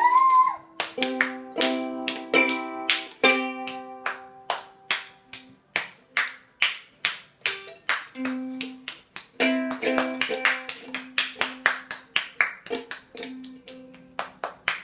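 Ukulele strummed by a small child: an uneven run of quick strums, about two or three a second, each chord ringing only briefly. A short rising high tone sounds at the very start.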